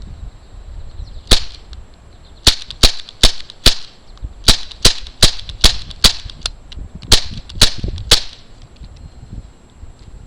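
A CO2 BB pistol firing semi-automatic, about thirteen sharp shots: one, then quick strings of several shots a few tenths of a second apart.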